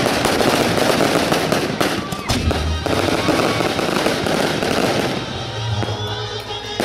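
Aerial fireworks crackling and bursting overhead in a dense, continuous crackle, with a few sharp bangs about two seconds in.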